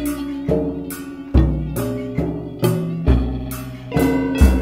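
Instrumental music from an experimental band: a drum beat with a heavy kick about once a second under sustained pitched instrument tones.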